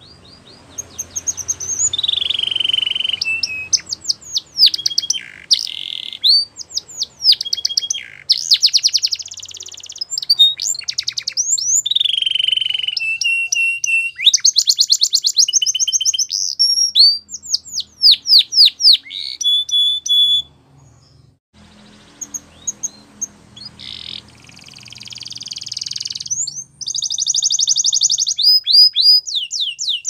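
Canary singing a long, loud song of rapid trills and rolls with quick falling sweeps. It breaks off briefly about two-thirds of the way through, then starts again.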